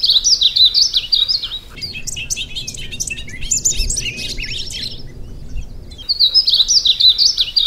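Small songbirds chirping and twittering in a busy, overlapping chorus, loudest at the start and again after about six seconds, where the same run of chirps comes back.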